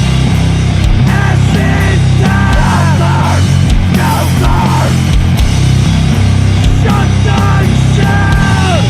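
Sludge metal: dense, heavily distorted band sound with a heavy low end, and high notes bending and wavering above it, one sliding down near the end.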